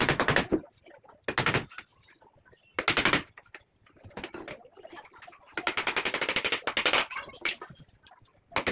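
Handheld power tool with a rapid hammering action, run in several short bursts while the door frame is being fixed. The longest burst, about a second and a half, comes past the middle.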